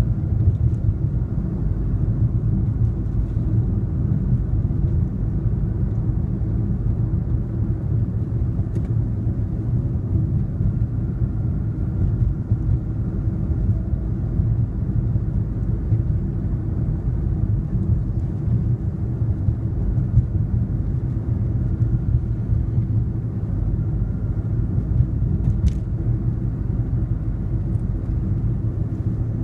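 Steady low rumble of a car driving along a city street, tyre and engine noise heard from inside the moving car.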